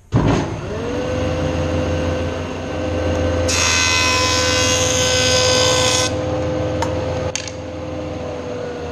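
Jointer switched on and spinning up to speed, then a board's edge fed across the cutterhead: a bright, loud cutting sound lasting about two and a half seconds, starting about three and a half seconds in. Near the end the machine is switched off and the motor's hum starts to fall in pitch as the cutterhead winds down.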